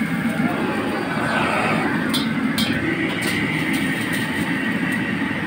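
Carbon-steel wok being scrubbed out with a wooden wok brush, water hissing and splashing in the hot pan with a few short scraping strokes, over a steady loud rumble from the stove.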